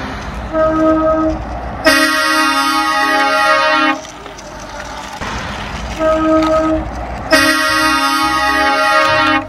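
Truck horn sounding twice: each time a short toot, then a long loud blast of about two seconds.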